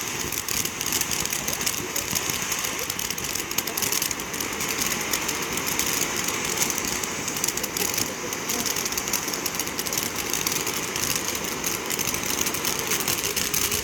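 A ground firework burning with a steady hiss and a dense stream of fine crackles, starting suddenly.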